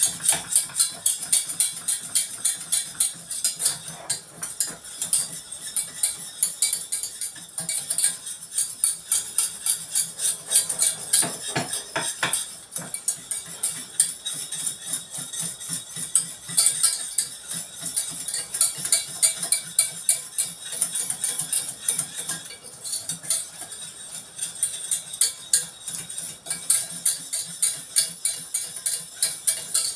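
A metal utensil scraping and clinking steadily against the inside of a stainless steel saucepan, about three strokes a second, stirring flour toasting in melted fat for a béchamel roux.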